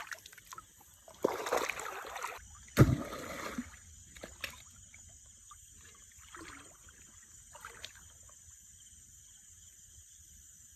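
Water splashing and sloshing in a shallow river: two splashes, about a second and three seconds in, the second starting with a sharp hit, then a few faint small splashes.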